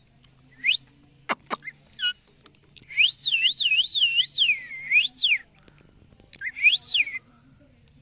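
Rose-ringed parakeet making shrill whistled calls. A few short calls come first, then a fast run of wavering calls rising and falling about three times a second, and a last pair of calls near the end. A couple of sharp clicks come about a second in.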